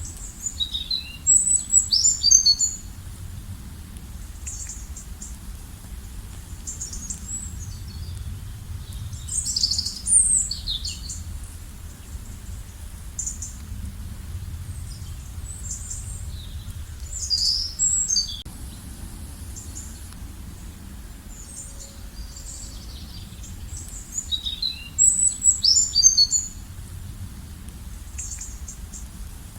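Songbirds singing: four bursts of quick, high chirping phrases about eight seconds apart, with fainter chirps in between, over a steady low rumble.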